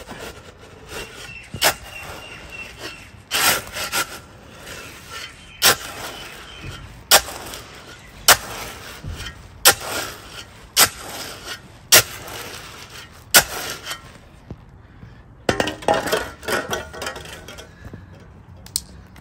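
Steel shovel blade chopping and scraping into a heap of dry concrete mix, a sharp gritty strike about once every second or so, hollowing out a well in the mix. Near the end comes a denser couple of seconds of scraping.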